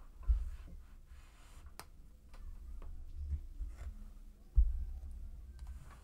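Quiet handling noises while pressing and moving quilt pieces: a soft low thump just after the start, a light click about two seconds in, and another soft thump near the end.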